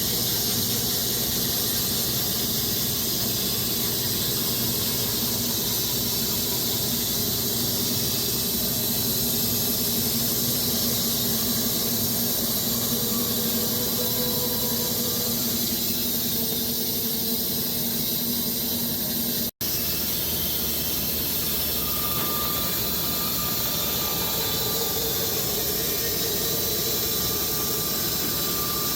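Wood-Mizer LX250 electric band sawmill cutting through walnut and oak logs: a steady, high-pitched blade-and-motor sound. It cuts out for an instant about twenty seconds in.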